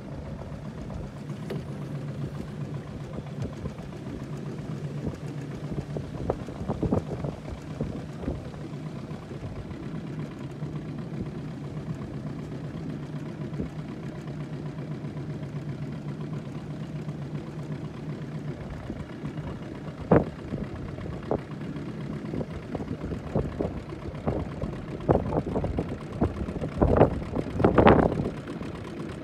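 Small fishing boat's motor running at a steady low hum, then dropping away about two-thirds of the way through; after that, irregular slaps and knocks of water against the boat's hull, the loudest near the end.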